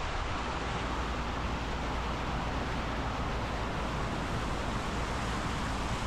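A car driving through floodwater, with a steady rush of spray thrown up from the front wheel over a low, steady rumble.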